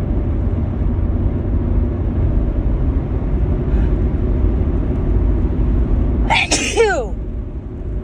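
A woman sneezes once, about six seconds in: a sudden sharp burst that falls in pitch, sneezing from a cold or allergies. A steady low rumble runs underneath.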